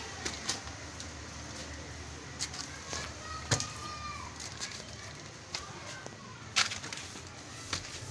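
Footsteps climbing stairs and phone handling noise: irregular clicks and knocks, with two sharper knocks about three and a half and six and a half seconds in.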